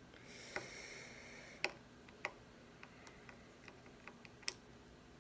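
Faint, irregular small metallic clicks and ticks of a small screwdriver working the tiny screws that hold an iPad 2's LCD panel, two of them louder, about a second and a half apart and near the end. A soft scraping hiss runs under the first couple of seconds.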